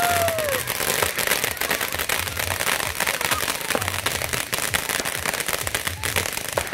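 Consumer fireworks crackling and popping continuously in a dense rattle of sharp cracks, with a short whistle that rises and falls in pitch near the start.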